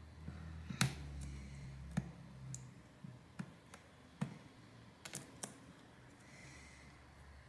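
Irregular sharp clicks and ticks of a pry tool digging at and chipping away cracked rear camera lens glass on a phone, about eight in all. A low hum underneath fades out after about five seconds.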